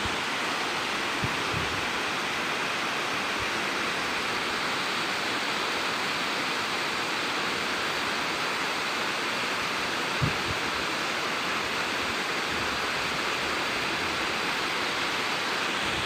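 Water of a stream cascading down a rocky channel at a waterfall, a steady, unbroken rush.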